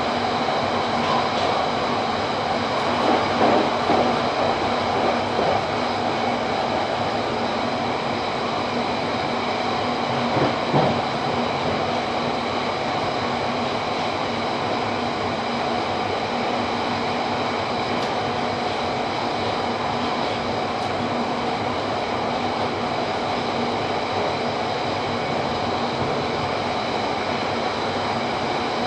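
A London Underground Central line 1992 Stock train running at speed, heard from inside the carriage. Wheels rumble steadily on the rails under a constant whine of steady tones, with a few louder clunks about three to five seconds in and again around ten seconds in.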